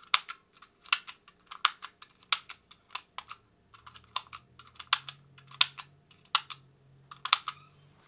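Hard plastic whack-a-mole push-pop fidget toy clicking as its buttons are pressed one after another, about a dozen sharp clicks roughly a second apart, with a short pause near the middle.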